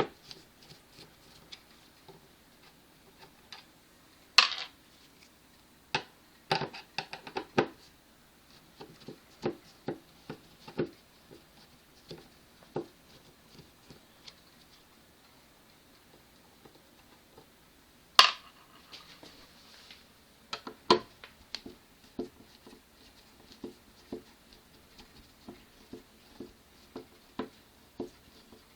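Screwdriver work on the refrigerator door handle brackets: irregular small clicks, taps and scrapes as Phillips screws are turned out, with two sharp, louder clicks about 4 seconds and 18 seconds in.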